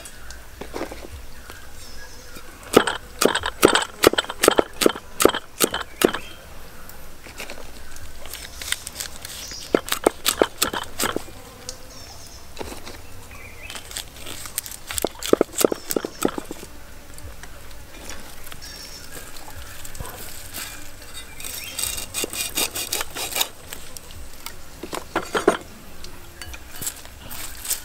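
Knife and ingredients knocking on a wooden chopping block in several short bursts of quick taps, with handling of garlic, chili, lime leaves and lemongrass between them. A faint steady hum of insects sits underneath.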